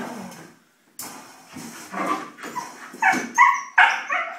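Husky puppy barking and yipping in a quick run of short calls, loudest in the second half, after a scuffing noise about a second in.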